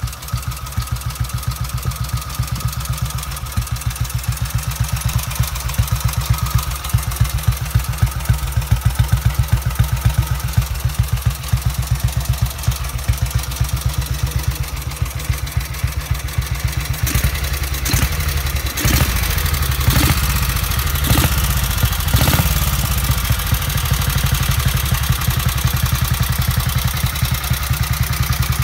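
1943 Norton 16H's 490 cc side-valve single-cylinder engine idling with an even, low thud. About two-thirds of the way through, the throttle is blipped several times in quick succession before the engine settles back to idle.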